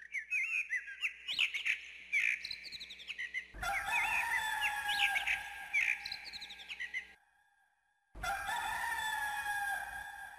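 Small birds chirping, joined a few seconds in by a rooster crowing in a long, slowly falling call. The sound cuts off abruptly about seven seconds in, and after about a second of silence the crowing and chirping start again.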